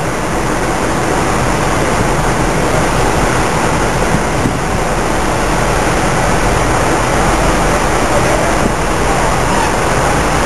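Diesel-hydraulic locomotive running as it draws its coaches slowly into the station: a steady, loud rushing noise with a low hum underneath.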